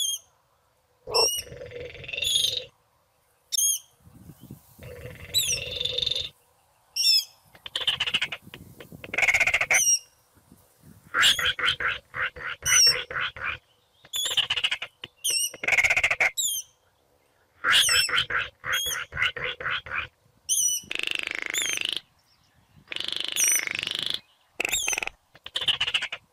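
Baillon's crake calling: a string of dry rattles, each a second or two long, made of rapid pulses with short gaps between them, and thin high chirps repeating throughout.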